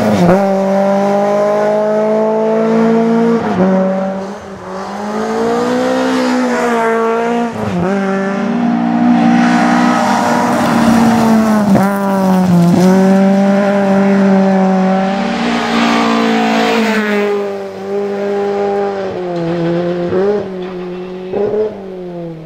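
Lexus Altezza rally car's engine revving hard at full throttle, its pitch climbing and then dropping sharply at gear changes and lifts, several times over. It fades near the end as the car drives away.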